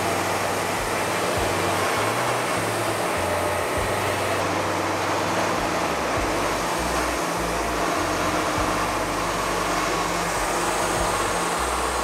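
Wood-Mizer LT40 Wide band sawmill running, its band blade cutting through a monkey pod log with a steady whirring drone. Background music with a changing bass line plays over it.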